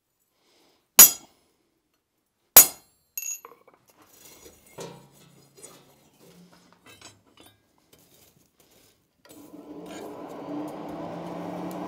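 Two sharp hammer blows on a center punch against a steel bar lying on an anvil, about a second and a half apart, followed by a few light metal clinks. About nine seconds in, the coal forge's blower starts: a steady rushing hum with a few held tones as the air blast fans the fire.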